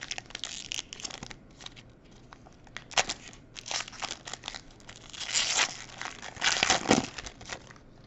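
A foil-wrapped Panini Mosaic basketball card pack being torn open and its wrapper crinkled by hand, in a string of short tearing and crackling bursts. The loudest come about three seconds in and again near seven seconds.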